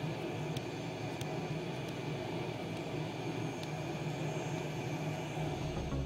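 Steady jet engine noise heard from inside a carrier fighter jet's cockpit, with a few faint clicks.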